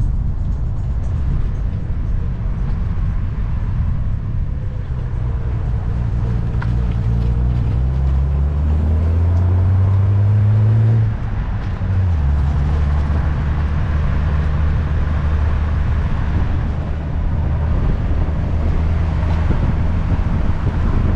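Triumph TR5's 2.5-litre straight-six engine pulling the car along, its revs climbing from about eight seconds in. About eleven seconds in it lifts off briefly for a gear change, then pulls on steadily at lower revs.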